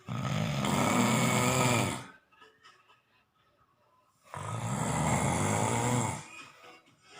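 Snoring: two loud snores about four seconds apart, each a rough, droning breath lasting about two seconds.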